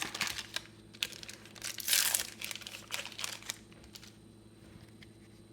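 A trading card booster pack's wrapper crinkling and tearing as it is opened, loudest about two seconds in and dying away after about three and a half seconds.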